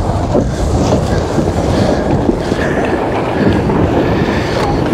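Wind buffeting the microphone over the rush and slap of water along the hull of a J70 sailboat driving through chop: a loud, steady low rumble.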